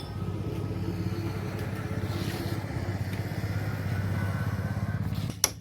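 Bajaj Pulsar 150 BS6 single-cylinder engine idling steadily, then cutting off about five seconds in, with a sharp click just as it stops.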